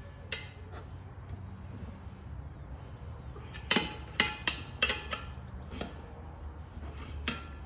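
Steel tools clanking and clinking against a steel tractor wheel rim as an old tire is pried off by hand, each strike ringing briefly. A quick run of four clanks comes about halfway through, with a few single ones before and after.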